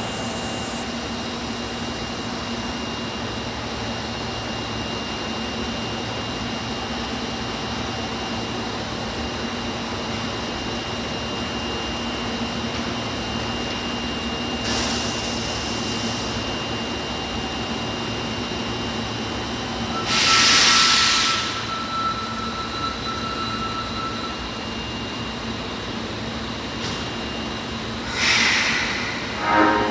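Steady hum of an Osaka Metro Tanimachi Line 22 series subway car with a few faint steady tones through it, broken by three short hissing bursts, the loudest about two-thirds of the way through.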